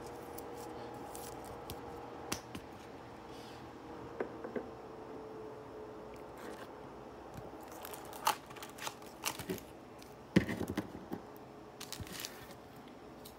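A trading card being slid into a rigid plastic top loader and handled on a table: scattered plastic clicks, taps and light scrapes, with a sharp tap about ten seconds in the loudest.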